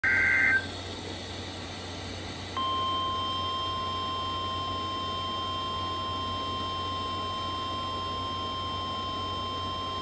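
Emergency Alert System broadcast: the tail of a SAME digital header burst, a short warbling data screech, cuts off about half a second in. After about two seconds of hiss, a single steady NOAA Weather Radio 1050 Hz warning alarm tone begins and holds, signalling a flash flood warning.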